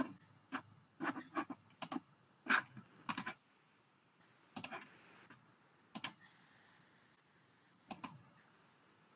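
Irregular clicking on a computer while a screen share is being set up: a quick run of clicks about a second in, then single clicks every second or two.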